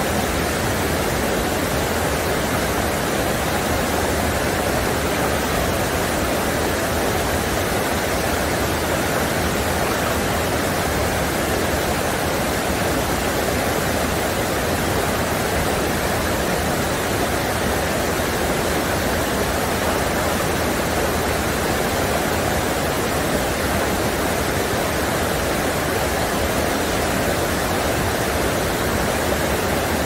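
Water pouring over a low concrete weir into a river, a steady, unbroken rush.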